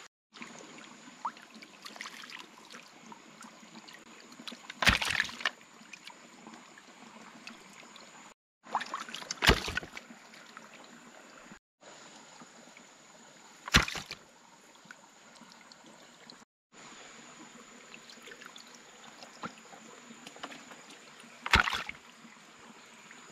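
Water sloshing and trickling, with four short, loud splashes a few seconds apart, over a thin, steady high tone.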